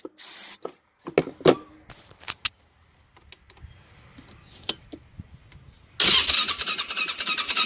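A brief hiss of aerosol starting fluid sprayed into the intake, a few clicks and knocks, then about six seconds in the Polaris Sportsman 500 HO's single-cylinder engine cranking over on the electric starter without firing. This is a crank-no-start condition: the engine will not catch even on starting fluid, a sign of no spark.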